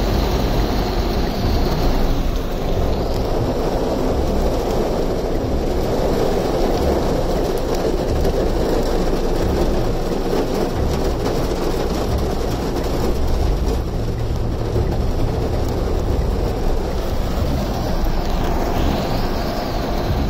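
Heavy monsoon rain and wind heard from inside a vehicle: a steady rushing noise over a low rumble.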